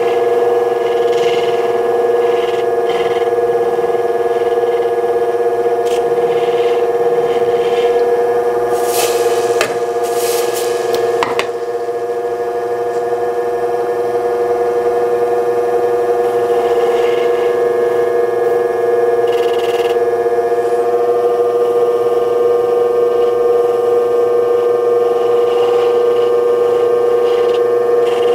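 Electric lapidary motor running steadily with a humming tone while a black opal on a dop stick is rubbed against its spinning wheel. A few short scraping sounds come about nine to eleven seconds in.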